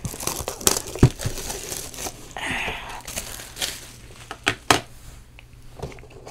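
Thin plastic shrink wrap crinkling and crackling as it is peeled off a cardboard card box and crumpled by hand, with a thump about a second in and two sharp taps a little past the middle as the box is handled.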